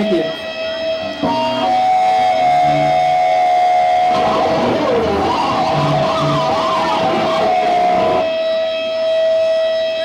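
Live band playing loud electric guitar music, over a steady high whine that runs throughout. The playing fills out about a second in and thins near the end.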